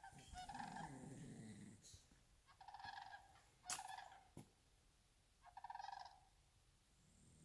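Wild turkeys gobbling far off, faint: about four short, rapid gobbles from several birds, with quiet gaps between them.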